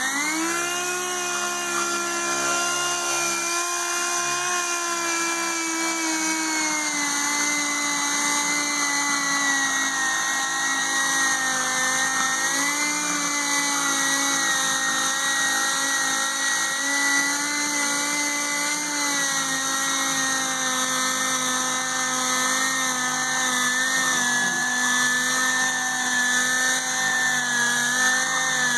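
Dual-action (DA) sander running, sanding a plastic motorcycle windshield with 1000-grit paper: a steady whine whose pitch dips a little about seven seconds in and wavers slightly after that.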